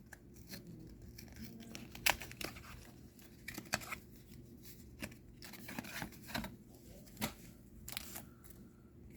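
Trading cards and their booster-pack wrapper being handled by hand: a series of sharp, irregular snaps and rustles, with a low steady hum under them.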